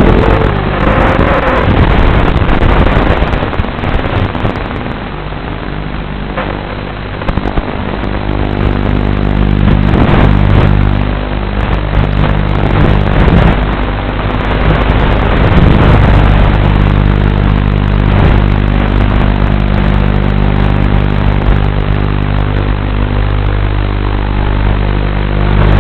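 Martian II 250 FPV quadcopter's brushless motors and propellers whining in flight, the pitch rising and falling as the throttle changes, over a steady rush of noise.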